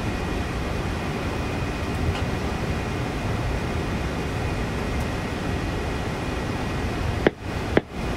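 Steady airliner flight-deck noise from a Boeing 787 in flight: an even hiss of airflow and ventilation, with a faint high whine in the first half. Near the end the sound cuts out briefly twice, each time with a click.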